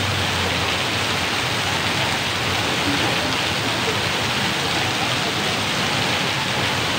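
Heavy rain pouring steadily onto a paved street, a continuous loud hiss of water.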